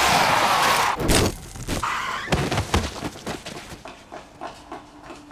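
A car hitting a pedestrian, as a film sound effect: a rush of noise, then several heavy thuds over the first three seconds, followed by small scattered clicks and rattles that die away.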